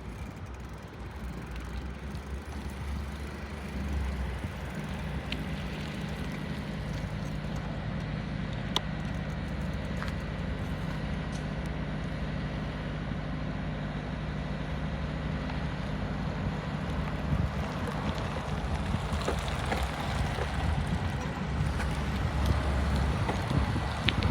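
Steady rolling and wind noise from a bicycle ride, with a low hum underneath and a few sharp clicks.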